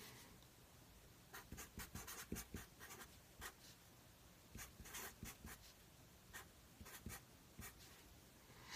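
Marker pen writing on a stack of paper: faint, short strokes in small bunches with pauses between, as terms of an equation are written out.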